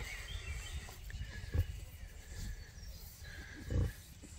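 A sow grunting low a few times, near the start, about a second and a half in and near the end (the loudest), while her newborn piglets nurse. Faint high squeaks sound softly over the grunts.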